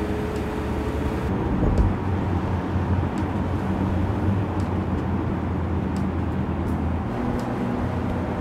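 Porsche Macan driving at a steady cruise: a low, even engine hum with tyre and road noise. The engine note shifts near the end.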